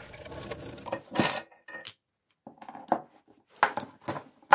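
Metal clinks and knocks as a three-jaw gear puller and the wheel clamp it has just pulled are lifted off the grinder's motor shaft and handled on a wooden workbench. The knocks come one at a time with short pauses, the sharpest near the end.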